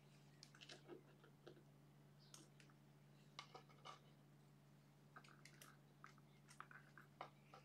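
Faint, scattered clicks and scratches of tweezers and fingers pushing foam sponges into the plastic electrode holders of an EEG headset frame, over a steady low hum.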